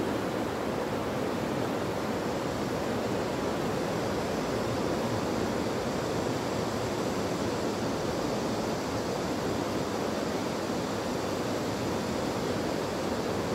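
Steady rushing of a swollen river in flood.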